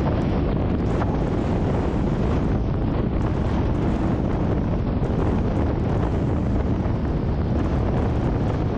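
Steady low rumble of a car on the move: road and wind noise.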